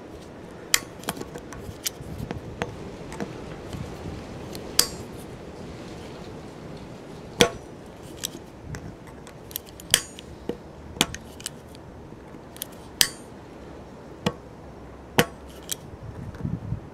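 Steel pliers working a nail out of a car tyre's tread: irregular sharp metallic clicks and clinks as the jaws grip and knock against the nail head, about twenty over the stretch.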